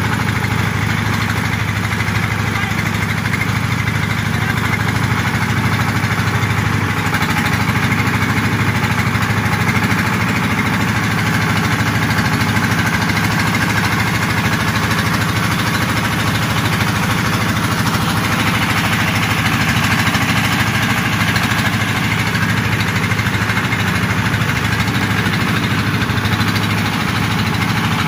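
Engine of a wooden motor boat running steadily at cruising speed, a constant low drone.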